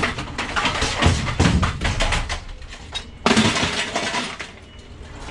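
Pieces of scrap metal crashing and clattering as they are thrown onto a scrap pile: several rough crashes, with a dense run of clatter a second or so in and another crash a little past the middle.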